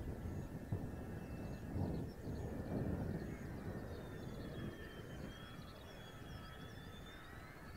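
Mitsubishi F-2's F110 turbofan on landing approach, still distant: a thin high whine that sags and then climbs again in pitch over an uneven low rumble.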